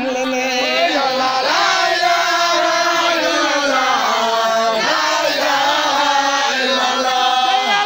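Many voices chanting together in unison, with long, held notes: Muslim devotional chanting by a gathered crowd.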